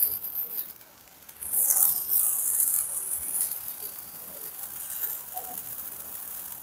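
Stale hand-held sparkler burning with a fizzing hiss and fine crackle. It dips briefly about a second in, comes back strong, then runs on more softly over the last few seconds.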